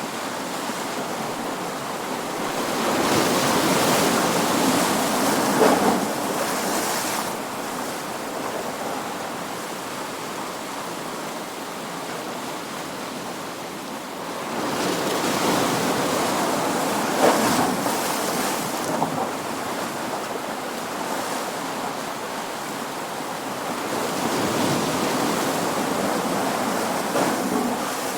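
Ocean surf: waves breaking on a shore in three swells, each building to a crash with short splashing peaks and then falling back to a steady wash of water between them.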